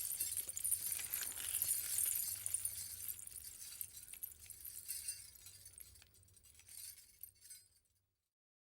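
Footsteps crunching over broken glass: a dense crackle of small clinks and grinding shards, loudest in the first couple of seconds, then thinning and fading out about eight seconds in.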